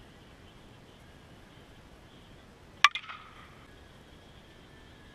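Louisville Slugger Super Z softball bat striking a softball once, about three seconds in: a sharp crack with a short ring, followed by a few faint clicks.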